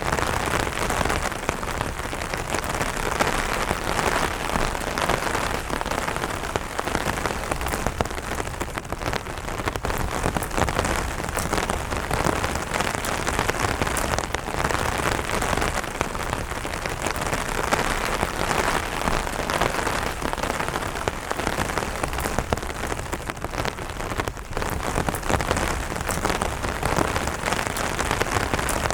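Steady light rain falling on an umbrella canopy: a dense, even spread of many small drop hits.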